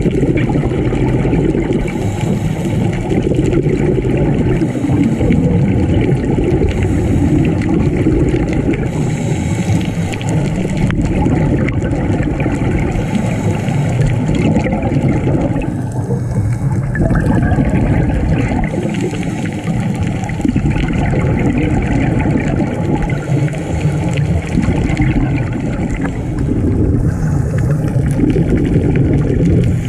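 Muffled underwater rumble with bubbling and gurgling, picked up by a diver's camera under water: steady throughout, with no distinct events.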